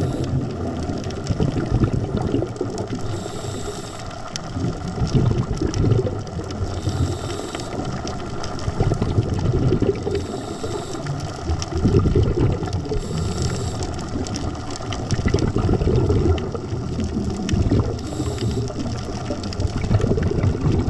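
Scuba diver breathing through a regulator underwater: a short hiss of inhalation about every three and a half seconds, each followed by a low, longer burst of exhaled bubbles, over a steady crackle of fine clicks.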